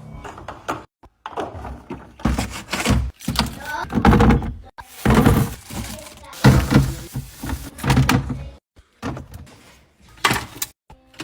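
A run of knocks, thunks and rustling from grocery items and packaging being handled and set down while restocking.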